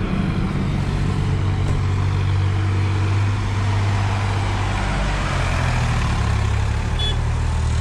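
Sonalika DI-745 III 50 hp tractor's diesel engine running as the tractor drives up and passes close by. The steady engine hum drops a little in pitch about five seconds in as it slows and turns.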